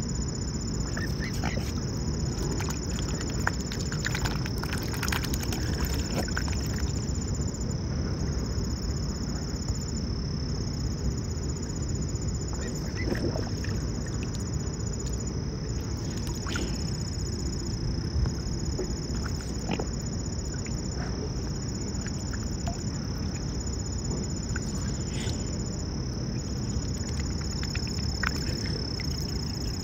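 Mute swans feeding with their heads under the water: scattered small splashes and sipping clicks from their bills at the surface, over a steady low background rumble and a thin steady high whine.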